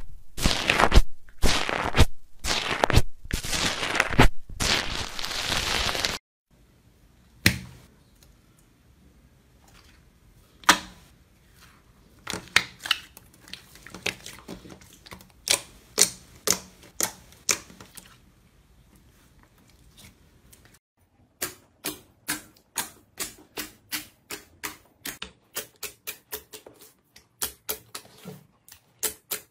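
Slime being worked by hand. First a spoon stirs a bowl of foamy slime in loud, noisy strokes for about six seconds. Then hands squeeze and press the slime, giving scattered sharp clicks and pops that settle to about two a second near the end.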